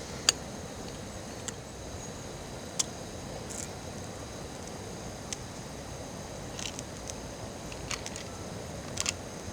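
Steady chorus of summer insects chirping, high and continuous, with a few sharp clicks over it.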